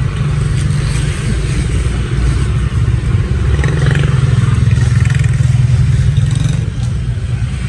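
A motor vehicle engine running close by. Its low hum grows louder over a few seconds in the middle and eases off near the end.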